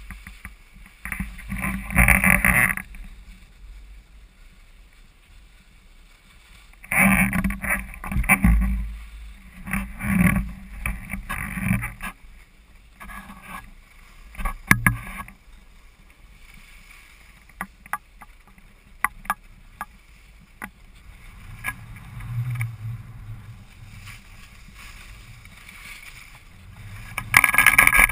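Skis sliding and scraping over groomed snow through downhill turns. The rushing noise comes in bursts with each turn, with a few sharp clicks between them and the loudest bursts about two seconds in and near the end.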